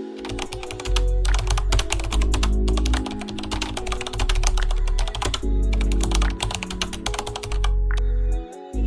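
Background music with a deep, steady bass under fast, dense runs of sharp clicks.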